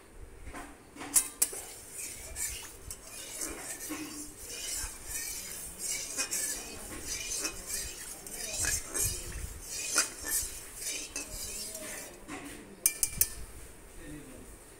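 Metal spatula scraping and clinking against the inside of an aluminium karahi (wok) while spreading oil around it. Sharp clinks about a second in and around ten seconds in, and a quick cluster of clinks near the end.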